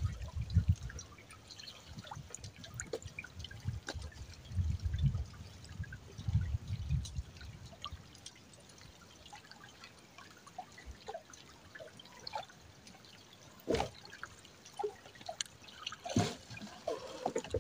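Water dripping and trickling off a drift gill net as it is hauled aboard a small boat, with scattered small knocks, a low rumble through the first half, and two sharp thumps near the end.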